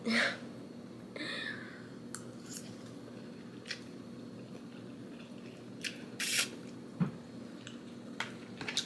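Quiet eating sounds of a person tasting a bite of noodles: a few light utensil clicks and soft slurping and chewing, over a faint steady hum.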